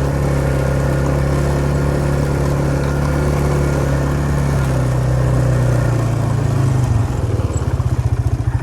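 Tractor engine idling steadily, then about seven seconds in it begins to stumble and pulse unevenly, close to stalling.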